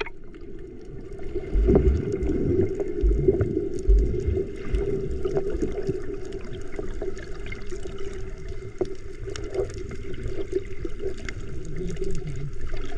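Water sloshing and gurgling close to the microphone, with irregular low thumps and a steady hum underneath.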